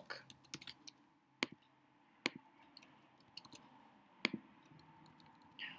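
Faint, scattered keystrokes on a computer keyboard as a short phrase is typed and corrected, single clicks with pauses between them.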